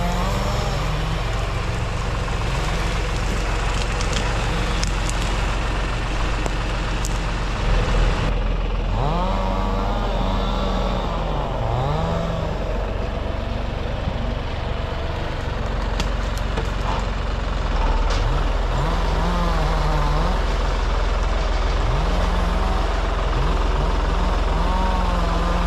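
New Holland TT55 tractor's diesel engine running steadily, its pitch rising and falling again and again as the revs change. A brief louder knock comes about eight seconds in.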